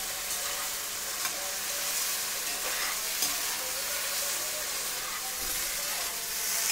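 Chunks of meat sizzling steadily in hot oil in a kazan, stirred with a metal skimmer that gives a few light clicks against the pot.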